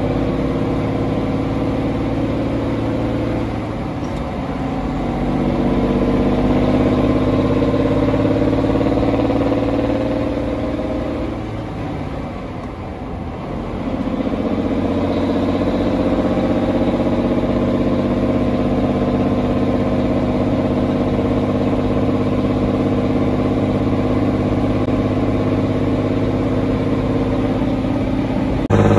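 1958 Kenworth truck's engine pulling the truck along the road on a test drive after a head gasket replacement, running smoothly. Its pitch climbs, dips about four seconds in and again about twelve seconds in, then climbs and holds steady.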